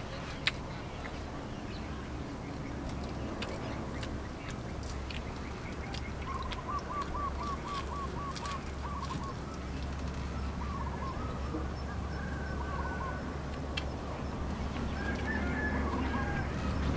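Birds calling in the background in runs of short, rapid repeated notes from about six seconds in, over a steady low hum. Small clicks and mouth sounds of someone eating a leaf-wrapped rice pancake come and go.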